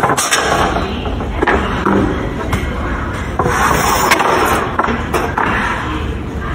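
Wooden boards sliding off a steel lumber cart, with several sharp knocks of wood against wood and metal.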